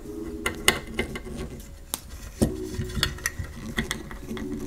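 Small clicks and taps of a metal screw, washers and plastic model-kit parts being handled and set into position, with a screwdriver tip meeting the screw head; a few of the clicks are sharper and louder.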